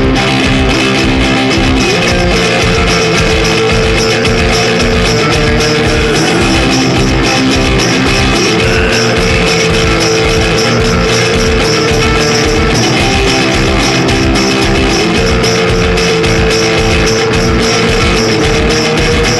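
Loud garage punk rock instrumental: a guitar riff whose held notes slide up and back down every few seconds, over a steady, fast drum beat.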